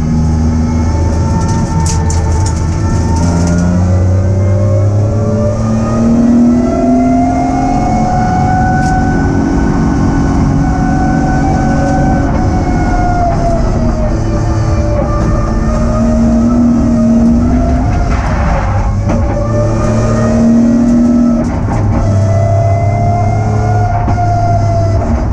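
BMW E46 M3's straight-six engine heard from inside the stripped race cabin, its pitch rising and falling over several seconds at a time as the car is driven round the track. A brief rush of noise about three quarters of the way through.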